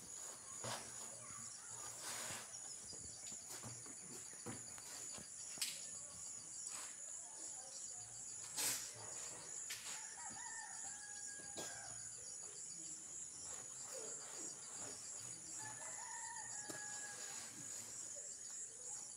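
A rooster crowing twice, about ten and sixteen seconds in, over a steady high-pitched chirring of insects, with scattered light knocks and rustles.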